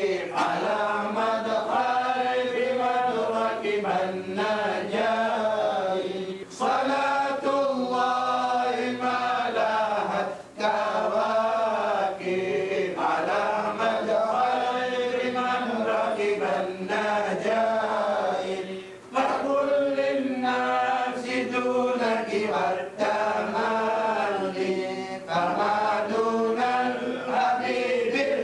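Melodic Arabic religious chanting by a single voice, drawn out in long ornamented phrases broken by brief pauses for breath.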